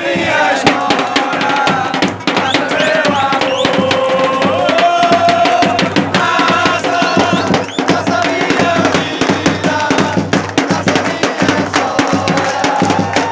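Football supporters' drum section beating a steady rhythm while the crowd sings along.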